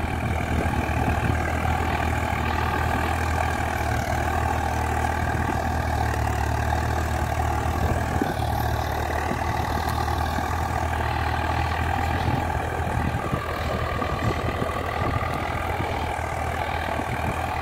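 Farm tractor's diesel engine running steadily while it pulls a plough through the soil.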